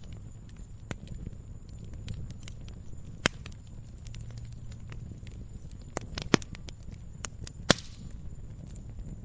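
Wood fire burning: scattered sharp snaps and pops of firewood over a low steady rumble, with a few louder pops here and there.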